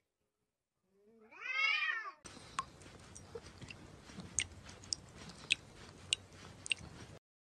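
A domestic cat's single drawn-out meow, rising then falling in pitch, about a second in. Then a cat licking food off a fingertip: scattered small wet clicks and smacks over faint room hiss, which stop suddenly near the end.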